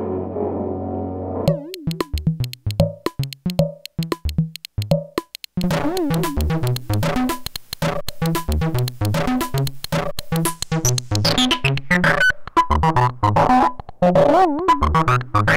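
Elektron Model:Cycles drum machine played through a Bliss Factory fuzz pedal: a few sparse, separate fuzzed drum hits, then from about five seconds a busy, steady beat with warbling pitched tones and an upward sweep near the end. A sustained guitar tail cuts off about a second and a half in.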